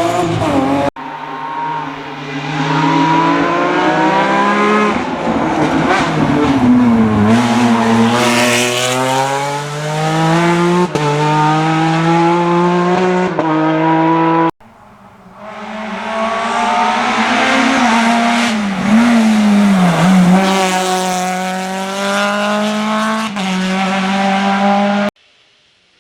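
Rally car engines at full throttle on a stage, revving up and down through the gears with quick shifts. The sound cuts abruptly from one shot to the next about a second in, about halfway through and near the end.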